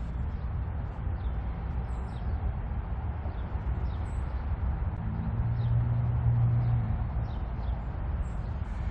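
Steady low outdoor rumble that swells with a droning hum for a couple of seconds in the middle, with a few short, high bird chirps scattered over it.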